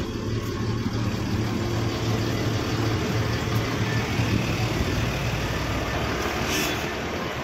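A bus's diesel engine idling steadily, a low hum under a haze of running noise, with a brief hiss about six and a half seconds in.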